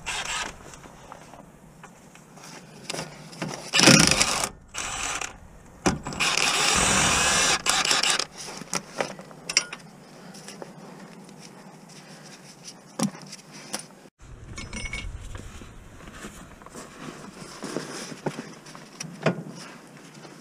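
Cordless power tool worked on the front suspension bolts in short bursts, the longest about a second and a half, with sharp metallic clinks of tools and parts between.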